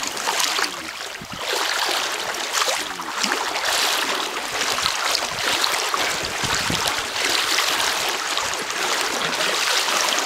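River water rushing and splashing close around a kayak, a steady hiss with small irregular splashes throughout.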